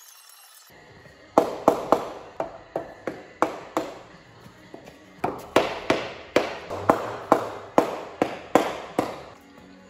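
A run of about twenty sharp taps, roughly three a second with a short break in the middle, each ringing briefly; typical of a tool knocking on engine parts. Faint background music under it.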